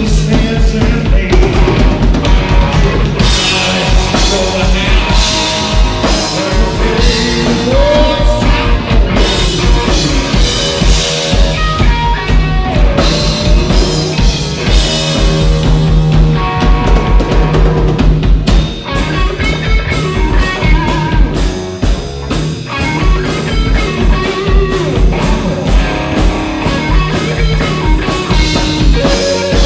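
Rock band playing live without vocals: electric guitar, electric bass and a drum kit keeping a steady beat, with bent guitar notes at times.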